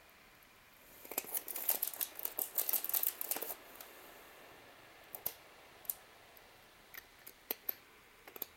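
Cat crunching dry kibble eaten from a hand: a quick run of crisp crunches for a couple of seconds, then scattered single crunches.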